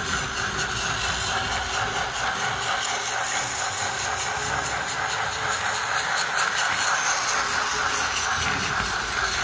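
Tomy D51 toy steam locomotive running on plastic track: a steady whirring and hissing from its motor and its onboard sound and steam unit.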